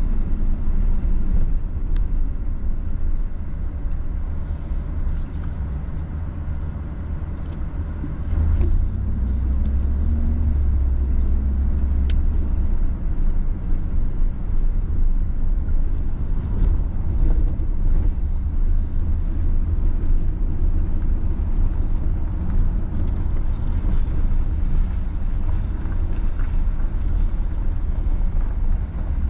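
A car driving along a road: a steady deep rumble of engine and tyre noise, growing a little louder about eight seconds in.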